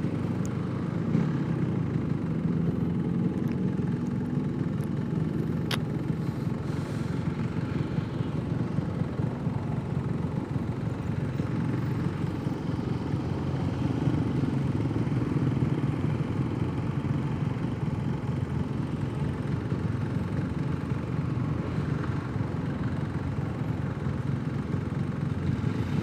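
Yamaha RX-King's two-stroke single-cylinder engine running steadily while the motorcycle is ridden, heard from the rider's position. There is one sharp click about six seconds in.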